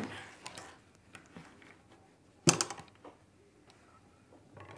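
Cloth rustling as a garment is gathered and smoothed by hand, with scattered light clicks and one sharp clack about two and a half seconds in.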